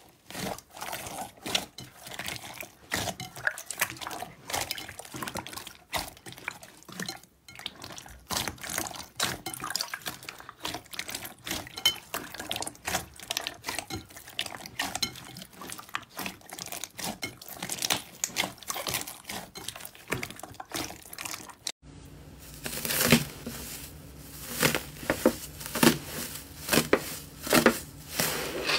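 Hands squeezing and kneading a large mass of glossy blue slime, with quick wet squelches and pops of trapped air. About 22 s in the sound changes abruptly to a pink slime coated in gold foil being pressed down, giving louder, spaced crinkling crackles.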